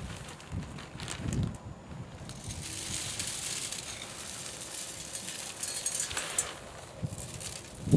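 Birdseed being poured slowly into the small filling hole of a barn-shaped bird feeder. Seed runs in as a trickling hiss dotted with small clicks from about two and a half seconds in until near the end, after a few soft knocks at the start.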